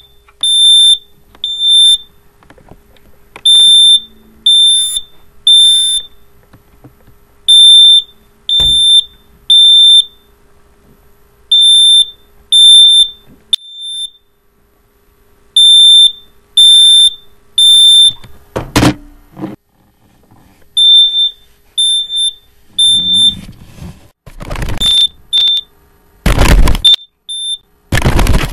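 Smoke alarm sounding its piercing beep in groups of three, about a second apart with a short pause between groups. Toward the end the beeps become shorter and irregular, broken up by several loud thuds.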